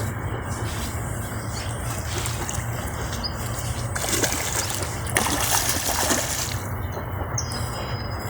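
Water splashing, loudest for a couple of seconds from about four seconds in, over a low steady rumble, with brief high bird chirps and one held whistle near the end.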